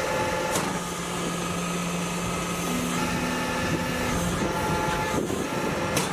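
Concrete block-making machine running: a steady mechanical hum with a hiss over it, and a sharp knock about half a second in and another near the end.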